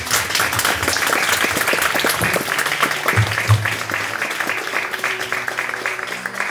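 A crowd applauding with many hands clapping fast, over soft background music; the applause slowly thins out in the last couple of seconds.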